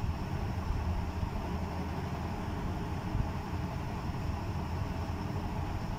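Steady low background rumble of room noise, with no distinct events.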